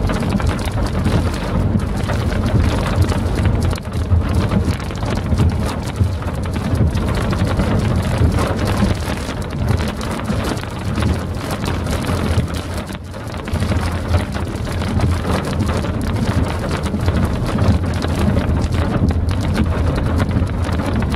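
Heavy rain drumming on a car's roof and windscreen, with a continuous low rumble underneath.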